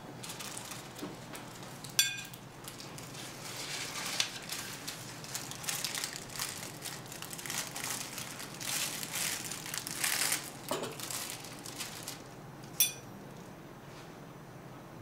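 Clear plastic wrap crinkling for several seconds as it is pulled off a plate of food. Cutlery clinks with a short ring against a dish about two seconds in, and again later on.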